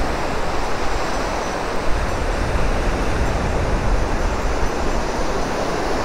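Steady rush of small waves washing onto a sandy beach, mixed with wind buffeting the microphone.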